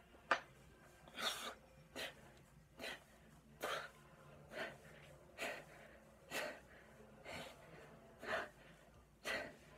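Sharp, hissing breaths forced out through clenched teeth, about one a second, from a man straining through a set of one-arm dumbbell rows, one breath per rep.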